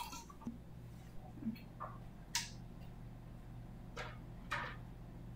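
A handful of light clicks and clinks from glass canning jars, metal lids and a metal jar lifter being handled, spread through the few seconds, over a faint steady low hum.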